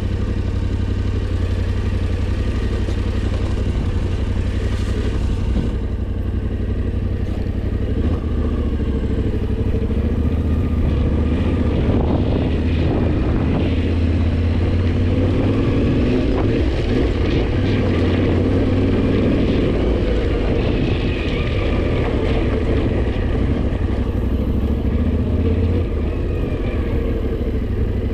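Yamaha Tenere 700's parallel-twin engine running steadily while the motorcycle is ridden.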